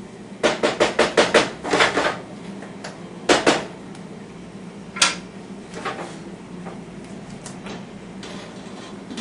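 Wooden spatula knocking against a frying pan on a gas stove: a quick run of about eight knocks in the first two seconds, two more a little later, and a single sharp clack about five seconds in.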